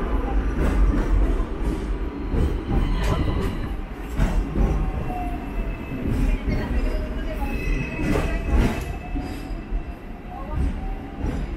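Hong Kong double-decker electric tram running along its street track: a steady low rumble with scattered knocks and clatter, and thin high wheel squeals coming and going.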